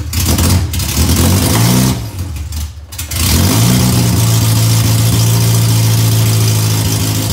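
Freshly built stroker four-cylinder engine in an all-wheel-drive Honda CRX, fitted with aggressive cams, revving up and down a couple of times and then settling into a steady idle about three seconds in.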